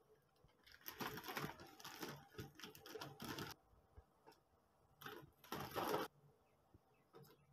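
Plastic instant-noodle packaging crinkling and rustling in two irregular crackly bursts, the first lasting about three seconds and the second about one second, near the end.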